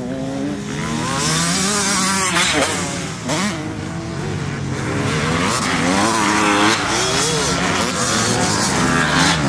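Motocross bikes racing round a dirt track. Their engines rev up and drop back over and over as the riders shift and take the jumps, several engines overlapping.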